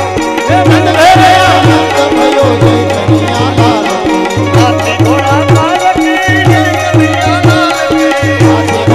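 Loud Indian devotional folk music with a steady drum beat under a wavering melody.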